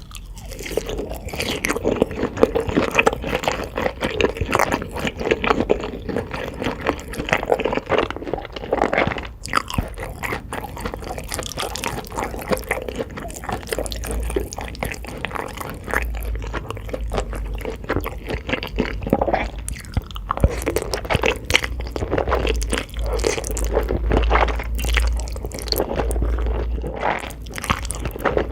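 Close-miked eating sounds: a person biting and chewing crunchy food, a continuous stream of irregular crunches and wet chewing.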